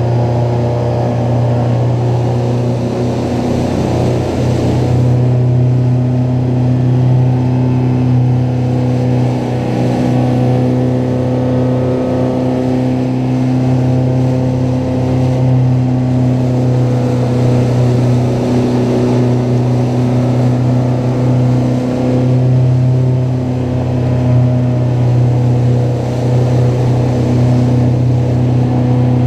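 Mariner 115 hp outboard engine running steadily at cruising speed, with the rush of water from the boat's wake.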